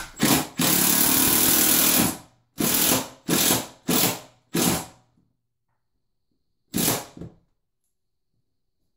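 Cordless Milwaukee drill/driver driving a cabinet screw from inside the cabinet through the back panel into a wall stud. It runs steadily for about a second and a half, then in several short trigger bursts, with one last brief burst a couple of seconds later.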